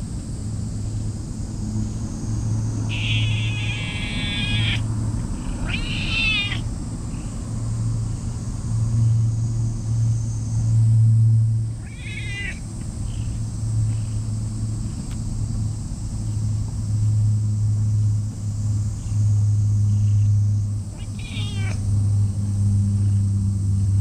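Black stray cat giving three short meows while being stroked, spread out over the stretch, over a steady low rumble.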